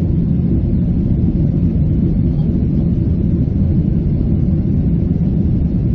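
Steady low cabin rumble of a Boeing 777-300 airliner in flight, heard from the rearmost seat: engine and airflow noise.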